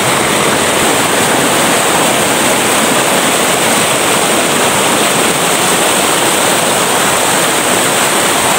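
Mountain stream rushing over boulders in small cascades, making a loud, steady rush of water.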